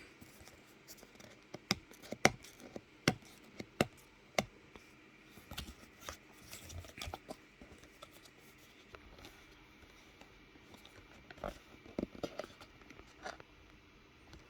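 Unboxing the packaging of a Samsung T7 Touch portable SSD by hand: a string of sharp clicks and taps, with scraping and rustling between them and a second cluster of clicks near the end.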